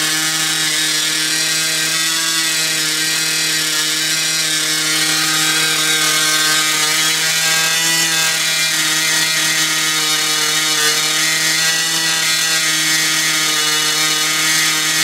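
Small nitro glow engine on a radio-control model airplane running very loud at a steady pitch throughout, during its break-in run.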